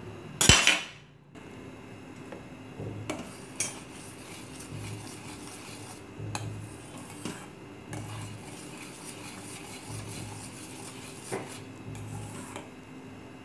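Steel spoon stirring and clinking against a stainless steel pot of simmering rice payasam, with light scrapes and taps roughly once a second. About half a second in, a short loud burst as the fried cashews and raisins are added.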